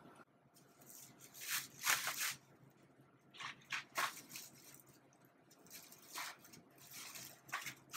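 Thin plastic shopping bag rustling and crinkling in several short bursts as items are packed into it.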